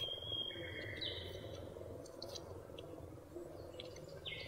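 Calling insects and frogs in the surrounding fields. A high, steady chirring note shifts pitch twice in the first second and a half, and a raspy pulsed call starts near the end, over a continuous low pulsing chorus.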